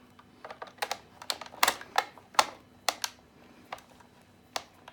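Irregular sharp clicks and taps of a screwdriver and hands working on a plastic battery-charger case as it is being taken apart, about a dozen knocks spread over a few seconds.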